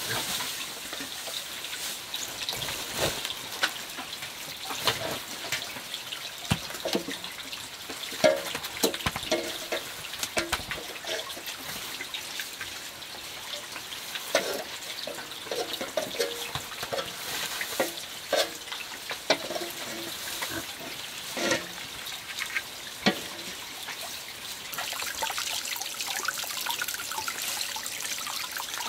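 Dry straw rustling and crackling as it is heaped onto hot embers to make smoke, with scattered clicks and knocks over a steady hiss.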